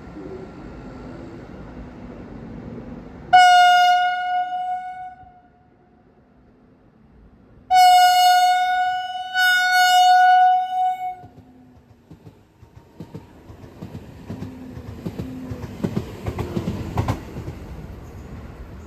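Train horn sounding three times: one blast of about a second and a half, then after a pause two blasts back to back. After that a train rolls past with rumbling and wheels clacking over rail joints.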